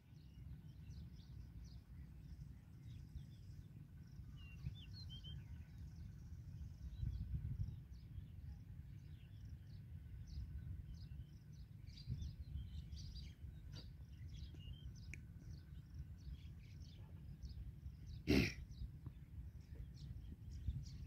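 Outdoor field ambience: many small birds chirping in short repeated calls over a low steady rumble, with one brief loud noise about 18 seconds in.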